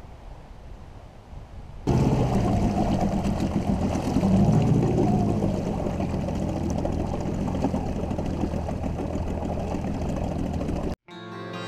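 About two seconds in, faint wind noise gives way to a dinghy's outboard motor running steadily, with water rushing past the hull and wind on the microphone. The motor sound cuts off abruptly near the end.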